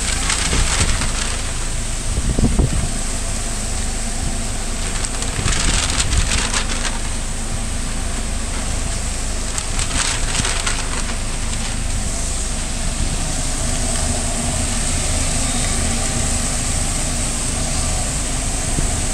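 Steady drone of a food truck's kitchen ventilation fans, with brown paper takeout bags crinkling and rustling as they are shaken open, in three short bouts.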